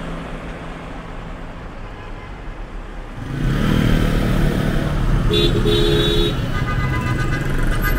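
Busy intersection traffic, with cars and motor scooters passing close. The engine sound grows louder about three seconds in, and car horns honk from about halfway through to near the end.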